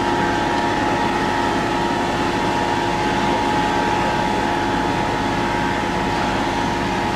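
Fire engines' pumps running steadily, a constant mechanical drone with a held, unchanging hum as the engines drive water through the hoses.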